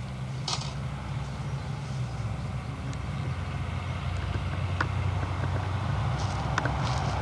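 A low, steady engine hum that slowly grows louder, with a few faint ticks and short hisses.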